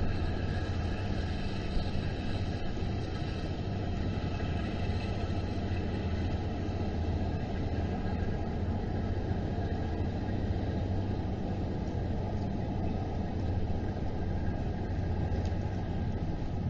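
Steady low diesel engine rumble of a tugboat pushing a large barge past, with no change in level or pitch.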